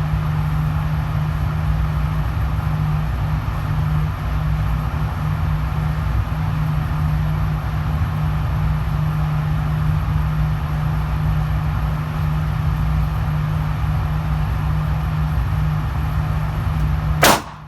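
A single shot from a Smith & Wesson M&P Shield EZ pistol, one sharp crack near the end, fired with a slow, unanticipated trigger pull. Before it, a steady low hum.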